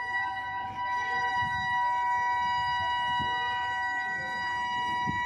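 Train horn sounding one long, steady multi-note chord for about five seconds, the lower note dropping out just before the rest. Two low thuds sound underneath, about three and five seconds in.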